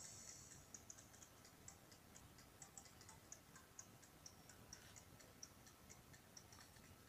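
Faint, quick snips of small scissors cutting a disc out of sandpaper, an irregular run of light ticks about three times a second.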